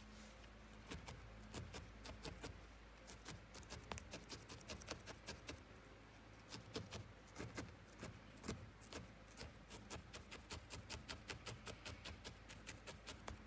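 Dry-felting needle repeatedly stabbing into wool on a felting pad: faint, quick ticks, sparse at first and coming several a second in the second half.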